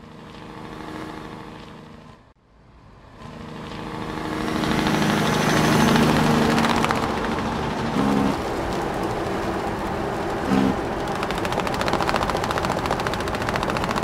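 Diesel tractor engine running steadily. It breaks off about two seconds in, then comes back and grows louder over the next couple of seconds, and runs on at a steady level.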